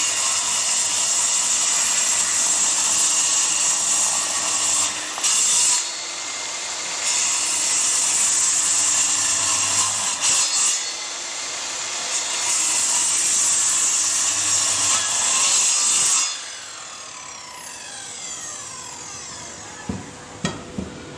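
Prescott PT0823505 corded electric circular saw cutting through a thick wooden beam, its loudness shifting as the blade bites and eases. About sixteen seconds in the motor is switched off and winds down in a falling whine, followed by a few light knocks.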